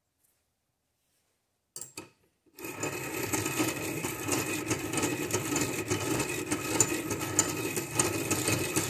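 A few handling clicks about two seconds in, then a steady metal grinding as the end of a Kohler Magnum M18 exhaust valve stem is held against a piston ring filer's wheel. Metal is being taken off the stem end to open up the valve-to-lifter clearance toward 12 thousandths.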